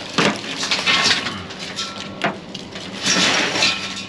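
Strings of Christmas lights being pulled out of discarded junk by hand: plastic rustling and clattering in several bursts, with a sharp click a little past two seconds in.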